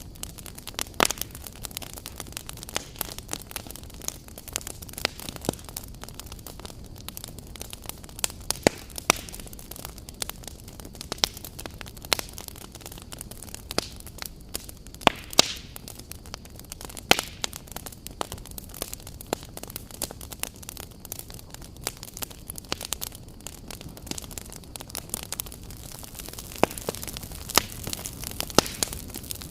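Wood campfire crackling: irregular sharp pops and snaps of burning firewood, a few much louder than the rest, over a steady low hiss.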